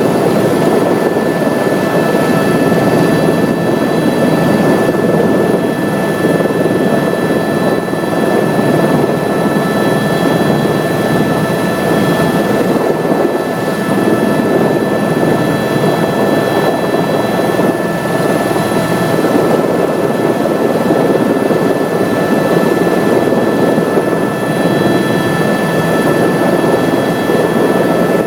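Helicopter running steadily in flight, heard from inside the cabin: a constant dense rumble with steady high whining tones over it.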